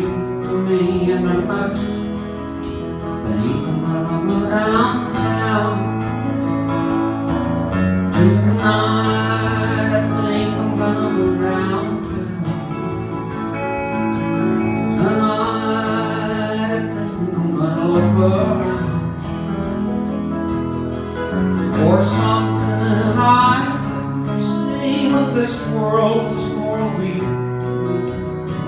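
Live band playing a country song on several strummed and picked guitars.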